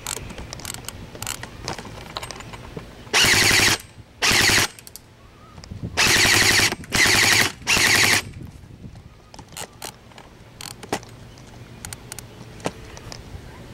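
G&G airsoft gun firing five short full-auto bursts, each well under a second, in quick succession about three to eight seconds in. Faint clicks and taps come between the bursts.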